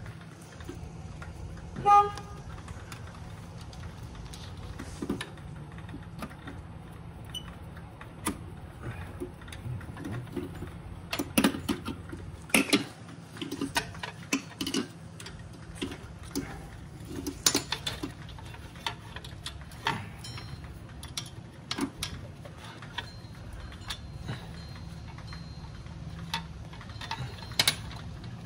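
Hand tools clicking and clinking against metal engine parts in irregular taps, with one brief ringing metal clink about two seconds in, over a steady low hum.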